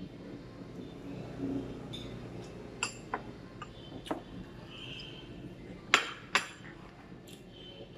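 Tableware clinking: utensils knocking against ceramic bowls and plates in a few separate light clicks, with two louder clinks close together about six seconds in.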